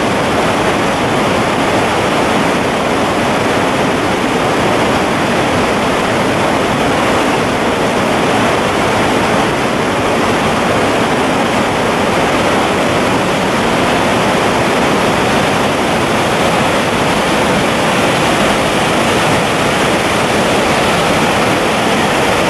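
Dettifoss waterfall: a massive volume of water falling into its canyon, heard as a loud, steady rush with no let-up.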